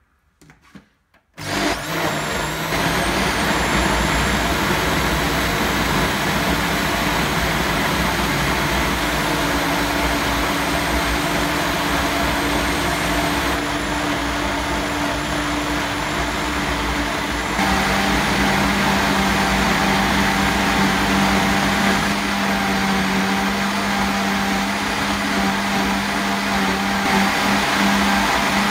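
Countertop blender motor starting after a couple of brief blips, then running steadily as it purées kale, banana and yogurt into a smoothie. Its pitch shifts partway through.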